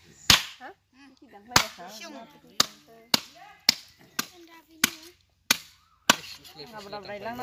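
Heavy curved chopping knife hacking through a large wallago catfish onto a wooden chopping block: about nine sharp chops, roughly half a second to a second apart, the first two the loudest.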